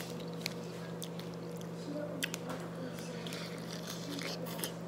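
Close-up eating sounds: chewing, with a few sharp mouth clicks, over a steady low hum.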